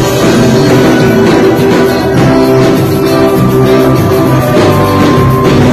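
Small live gospel band playing an instrumental passage on drum kit, electric bass, keyboard and guitar, with a steady drum beat under held notes.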